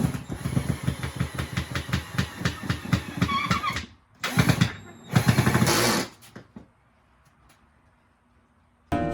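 Cordless impact driver hammering screws into a wooden board: a rapid rattle of about ten impacts a second for about four seconds, then two shorter runs.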